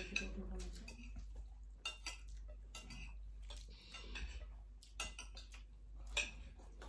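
Metal spoon clinking and scraping against a plate as rice is eaten, a scattered light click about once a second.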